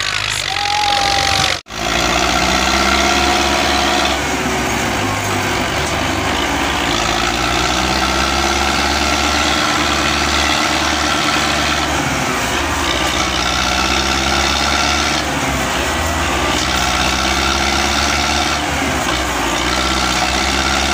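Belarus MTZ 510 tractor's diesel engine running hard under load as it hauls a heavily loaded sugarcane trolley. Its note rises and falls several times, and the sound cuts out briefly just under two seconds in.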